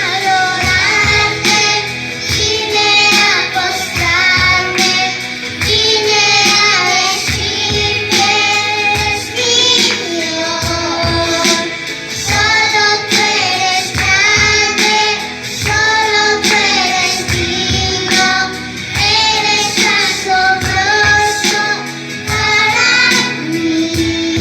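A young girl singing a worship song over instrumental backing music with a steady beat.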